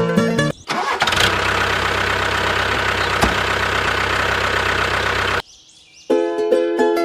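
A motor running steadily for about four and a half seconds, then cutting off suddenly. Plucked-string music plays briefly before and after it.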